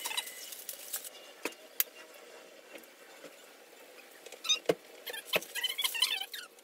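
Plastic packaging and a small bag of hardware being crinkled and rustled as they are handled, with a few sharp clicks and two dull knocks near the middle.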